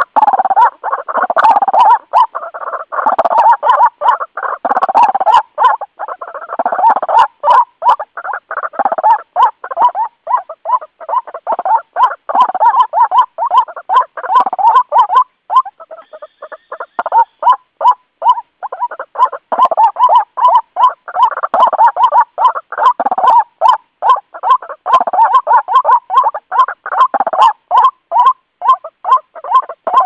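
White-breasted waterhen (ruak-ruak) calling loudly: a continuous run of rapid, repeated croaking notes, several a second, with overlapping calls at times and a brief lull about halfway through.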